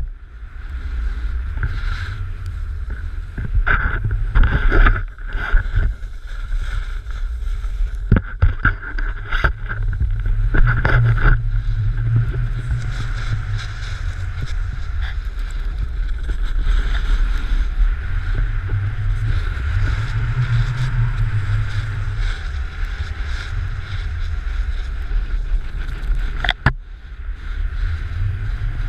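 Wind buffeting an action camera's microphone while a snowboard slides and scrapes over packed snow on the descent, with a few sharp knocks and clicks from the board and the handheld selfie pole.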